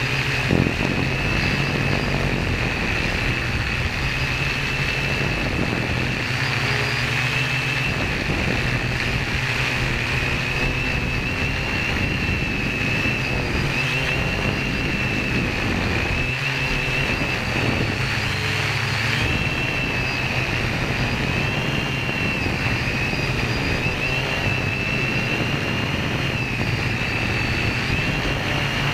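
Quadcopter's electric motors and propellers whining steadily at a high pitch that wavers slightly, over a constant low rumble, heard from a camera on the craft itself.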